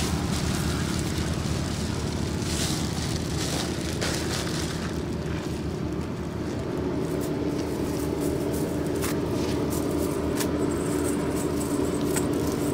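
A motor running steadily with a low hum; about halfway through a second, higher steady tone joins in, and a few light clicks sound near the end.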